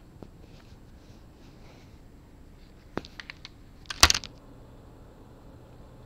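Handling noise from a small microphone and its thin cables being fumbled with in the fingers: scattered light clicks, a quick run of sharper clicks about three seconds in, then a loud cluster of knocks and rubs about a second later.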